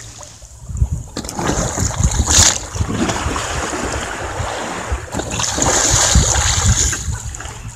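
Water splashing as a sea kayak capsizes and rolls back upright: a sharp splash about two and a half seconds in, then a longer rush of water as the paddler comes back up. Wind rumbles on the microphone throughout.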